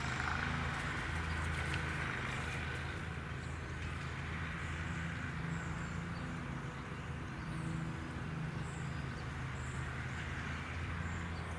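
A steady low engine hum, with faint, short, high-pitched bird chirps scattered through it.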